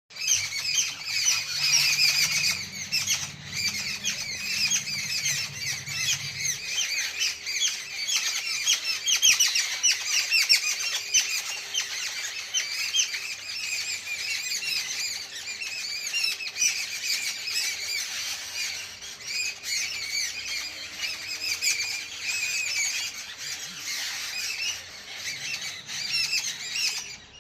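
A flock of many small birds chirping together in a dense, continuous chorus of quick, high overlapping calls. A low hum sits underneath for the first several seconds.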